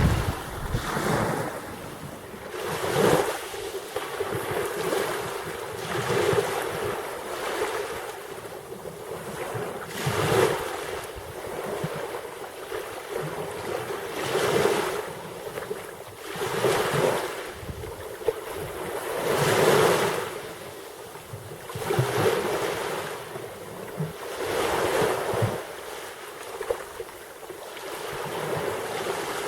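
Black Sea waves breaking and washing in, the surf swelling and falling back about every two to three seconds over a steady hiss.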